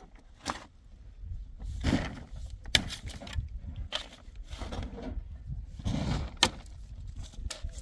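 Irregular knocks and clatters mixed with short scraping noises, over a constant low rumble.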